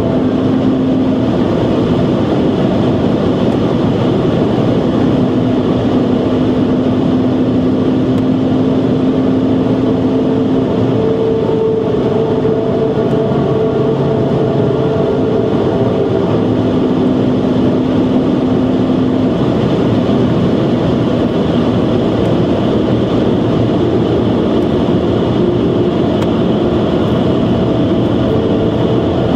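Cabin noise of a BMW 130i at speed: a steady drone from its 3.0-litre straight-six engine over loud wind and tyre noise. The engine note holds for several seconds at a time, then fades back into the road noise.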